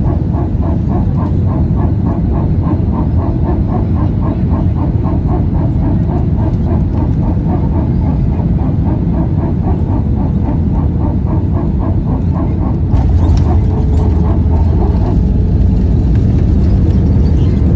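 Airliner engine noise during landing: a loud steady rumble with a rhythmic pulsing of about four beats a second, the engine noise the uploader noticed. About thirteen seconds in the rumble grows louder, and the pulsing dies away soon after.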